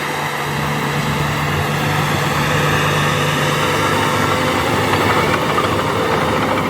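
Crawler bulldozer's diesel engine running steadily, growing a little louder about five seconds in.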